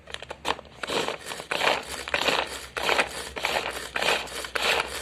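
Pull-cord manual vegetable chopper being pulled repeatedly, its steel blades spinning and chopping onion inside the plastic bowl: a rasping whir with each pull, repeated in quick succession from about a second in. The onion went in as large chunks, which makes the cord hard to pull.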